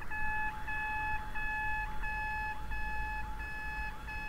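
Electronic railway warning signal sounding: a steady tone with a higher beep pulsing on and off about one and a half times a second, starting suddenly.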